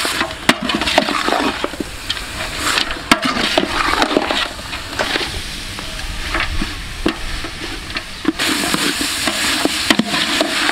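Chopped duck frying and sizzling in Khmer curry paste (kroeung) in a large aluminium pot, stirred with a metal utensil that scrapes and knocks against the pot. The meat is being seared in the paste before the coconut milk goes in. The sizzle eases off in the middle and comes back stronger near the end.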